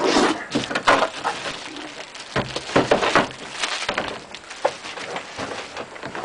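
Trading card pack being opened and its cards handled: irregular rustling and crinkling of the wrapper and card stock in short bursts.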